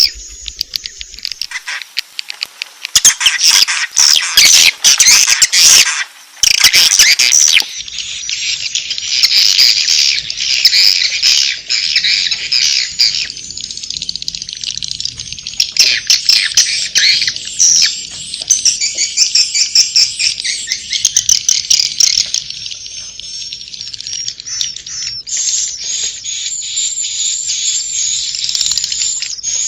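Recorded swiftlet 'inap' (roosting) call: a dense, continuous chatter of many high twittering chirps, the lure sound played in swiftlet houses to draw birds in to roost. The chatter is thickest and loudest a few seconds in.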